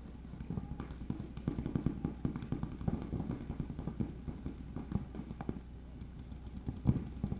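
Paintball markers firing in rapid, irregular strings of sharp pops, thinning out near the end with one loud pop.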